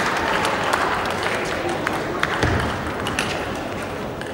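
Spectators' applause in a hall tapering off into scattered claps over a steady crowd noise, slowly fading.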